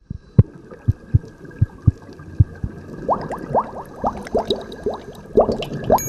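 Cartoon underwater sound effects for an animated intro. About half a dozen short, low thumps come first, followed from about halfway through by a run of quick rising bubbly bloops. A bright chime starts at the very end.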